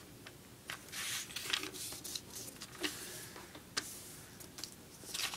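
A square sheet of paper being folded and creased by hand on a wooden tabletop: soft rustles and brushing as fingers press and slide along the fold, with a few sharp crinkling ticks.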